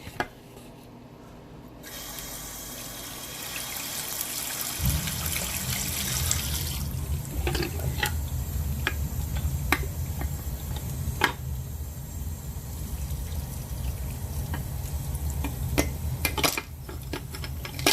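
Hot water running from a bathroom sink tap over ice, thawing a frozen flip phone. The flow starts about two seconds in and grows fuller about five seconds in, with scattered sharp clicks and knocks.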